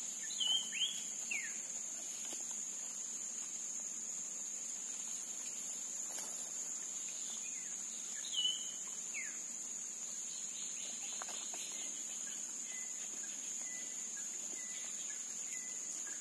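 Steady high-pitched insect chorus, with a few short sweeping bird chirps in the first second and a half and again about eight seconds in.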